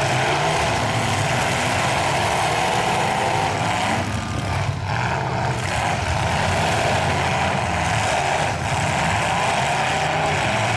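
Engines of several demolition-derby pickup trucks running hard together, a loud, steady din of mixed engine noise as the trucks push against one another.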